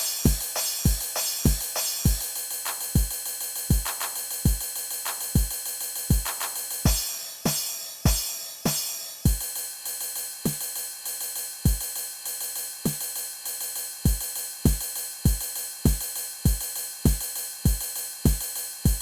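EGDR909 drum machine app, an emulation of the TR-909, playing a programmed beat: a steady kick drum about twice a second under fast hi-hats, with snare or tom hits in between. Around seven to nine seconds in a brighter cymbal-like wash comes in over the pattern.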